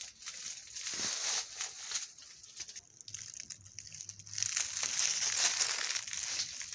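Dry fallen leaves crunching and rustling as someone walks through them: crackly rustling in two stretches, with a quieter lull about halfway through.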